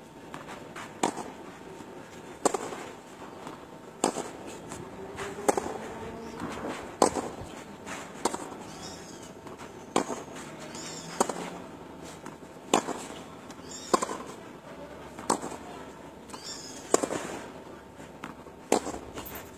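Tennis racquets striking a ball in a rally drill: sharp pops about every second and a half, some louder and closer than others.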